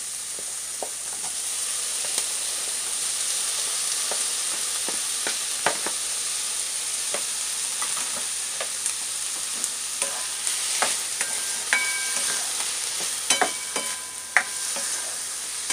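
Garlic and onion sizzling steadily in oil in a frying pan as chopped tomatoes are added and stirred in with a spatula. The spatula scrapes and knocks against the pan in scattered clicks, more often in the last few seconds.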